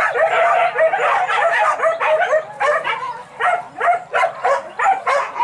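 A pack of hunting dogs barking and yelping, several dogs at once, their short high calls overlapping in quick succession.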